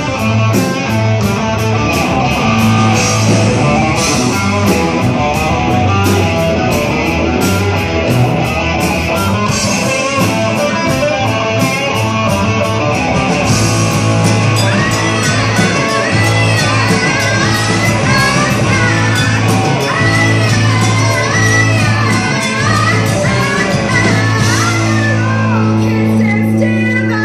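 A live rock band plays with electric guitar, bass guitar and drums, cymbals struck steadily throughout, in a reverberant hall. A woman's lead vocal comes in about halfway through.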